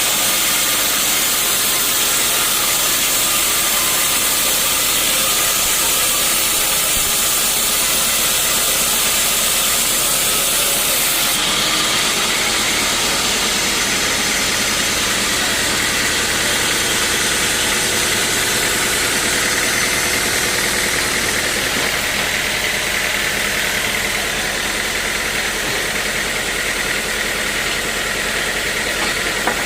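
Sawmill machinery running steadily with a loud hiss. About a third of the way in the sound changes: the high hiss drops away and a steady low engine hum comes forward, running on to the end.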